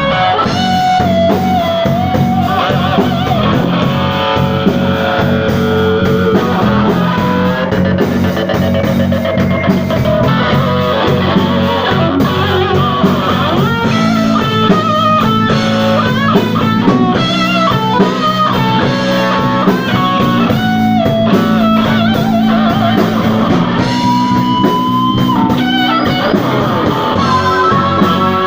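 Live blues-rock band playing an instrumental passage: electric guitar lines over bass and drums, with no singing.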